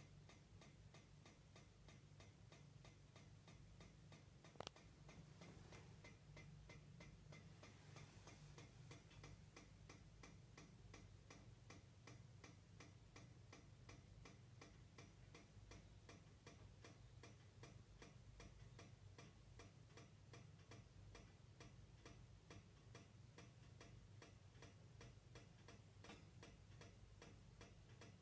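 Faint, even, rapid ticking from a white multi-column central-heating radiator, a few ticks a second, over a low steady hum. One sharper click sounds about four and a half seconds in.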